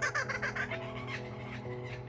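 Laughing kookaburra calling in a rapid cackling series, loudest at the start and fading after about a second, over background music with sustained notes.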